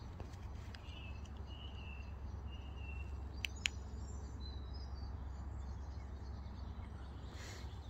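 Faint outdoor ambience: a low steady rumble with birds chirping now and then, mostly in the first half. Two sharp clicks come close together about three and a half seconds in.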